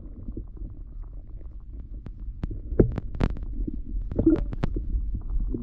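Muffled low rumble and sloshing of water around a camera held underwater, with a run of sharp knocks and clicks in the second half, the loudest about three seconds in.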